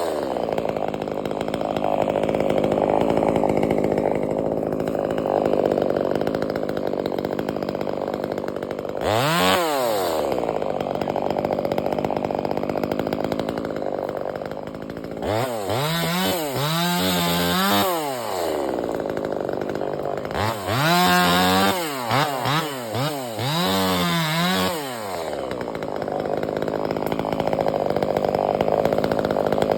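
Two-stroke chainsaw running at high revs, the engine note dropping to idle and climbing back up several times near the middle.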